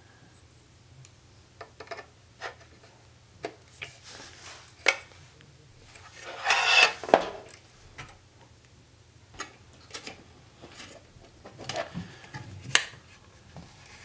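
Hands fitting a cable plug onto a hard drive and working the drive into a plastic recorder case: scattered light clicks and knocks of plastic and metal, with a longer scraping rub about halfway through that is the loudest sound.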